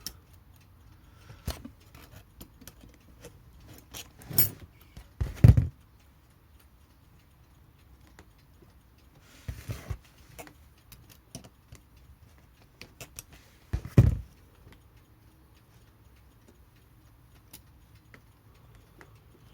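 Irregular small clicks, taps and knocks of hand tools and metal clock parts being handled while a balance wheel is fitted into an alarm clock movement, with a few louder knocks and a short rustle.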